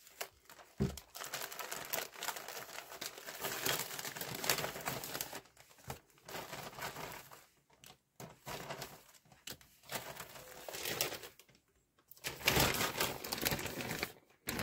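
Plastic mailer bag crinkling and rustling in bouts as it is handled and its contents are pulled out, with a sharp click about a second in.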